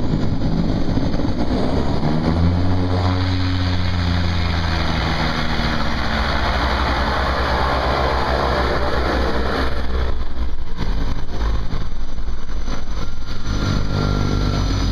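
A light single-engine airplane's engine running at low power as it rolls along the runway after landing, heard inside the cockpit as a steady drone over wind and rolling noise. The engine note grows stronger and eases off about two seconds in, then again near the end.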